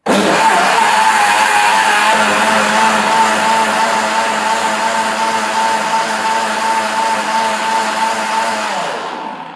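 Preethi Zodiac mixer grinder running with its large jar, churning curd cream and a little water into butter. The motor starts abruptly, runs at a steady high whine, and spins down near the end as it is switched off.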